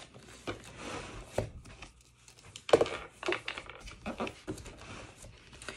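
Paper pages rustling as a book is leafed through, with a few light handling clicks and taps.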